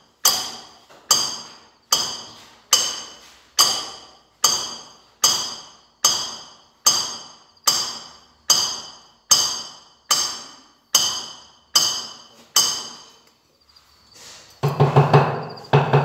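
Steady taps of a hammer bedding a floor tile into fresh mortar: each one a sharp knock with a short metallic ring, a little more than one a second. The tapping stops near the end and music with a drum beat comes in.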